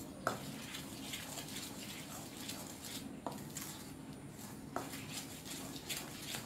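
A spoon stirring cake batter in a steel bowl, scraping steadily, with a few sharp clinks against the bowl's side.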